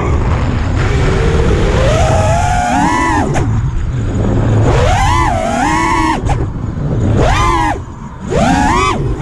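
Brushless motors and propellers of a 5-inch FPV freestyle quadcopter whining, the pitch swooping up and falling back several times as the throttle is punched and eased, over a steady low rumble of wind on the onboard camera. About eight seconds in the throttle is cut briefly and the whine drops away, then surges back.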